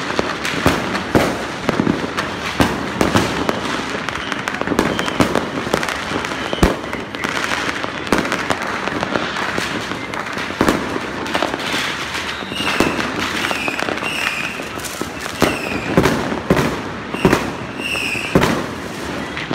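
Fireworks and firecrackers going off all across the neighbourhood: a dense, unbroken clatter of overlapping bangs and crackling, some sharp and close, most distant.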